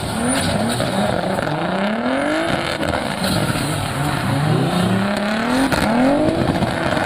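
Race car engines revving and passing by, several at once, their pitch gliding up and down over and over, played as a sound effect.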